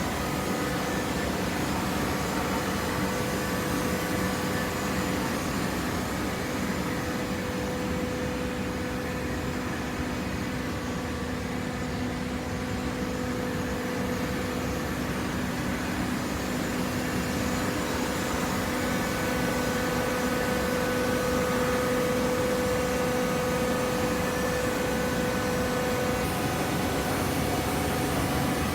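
Industrial machinery running with a steady drone and a few held tones, loudest between about 20 and 26 seconds in.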